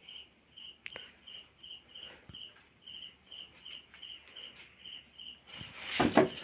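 A cricket chirping steadily, about two to three short chirps a second, over a faint high insect drone. Near the end a brief, louder rustling knock close to the microphone.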